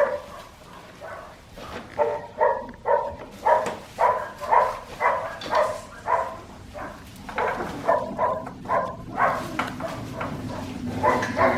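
Young Australian Shepherd puppies, about 4.5 weeks old, yipping in a long series of short high-pitched calls, about two a second.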